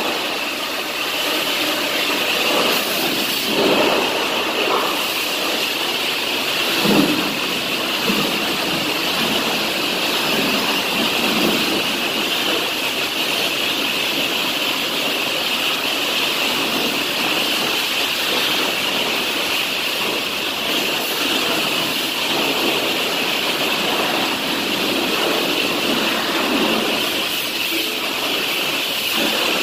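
High-pressure water spray washing down a semi truck, a steady hiss with water splashing off the truck and floor.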